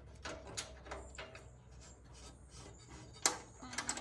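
Light clicks and small knocks from a PC case's screws and mounting plate being handled and worked loose by hand, a few scattered sharp clicks with the loudest about three seconds in.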